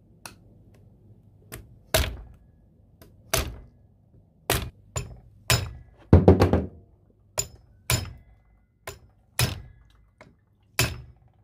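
Strikes knocking the wrist pin out of a Honda Spree 50cc scooter's piston: about a dozen sharp, unevenly spaced metal knocks, some with a brief ring.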